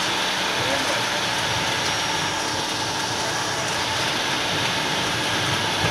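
Steady cockpit noise of a Bombardier Global 6000 business jet taxiing slowly after landing: an even rushing hiss of air and jet engines at low power, with a faint steady hum underneath.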